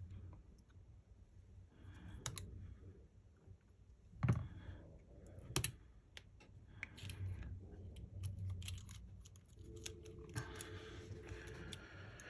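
Scattered small clicks and taps of repair tools on an opened iPhone 12 Pro, as its battery and display connectors are unclipped and parts handled. Two sharper clicks come about four and five and a half seconds in, and a faint hum sounds for about two seconds near the end.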